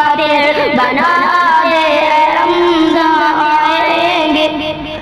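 A high solo voice singing the closing line of an Urdu farewell-to-Ramadan nasheed, drawn out in wavering, ornamented held notes. It fades away near the end.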